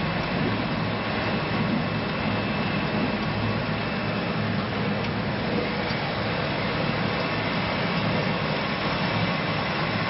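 Stainless steel industrial passion fruit juice extractor running: a steady machine whir with a low hum underneath, unchanging throughout.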